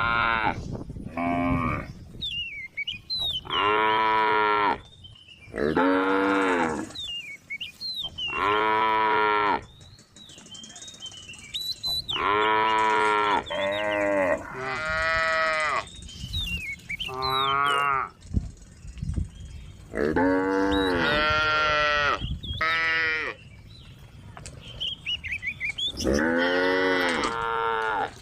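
Cows mooing: more than a dozen loud, drawn-out calls one after another, some following close on each other, as the herd calls back and forth.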